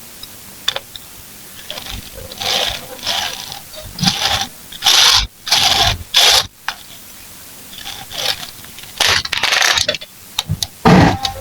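Small plastic building bricks being handled, with irregular bursts of scraping, rubbing and clicking.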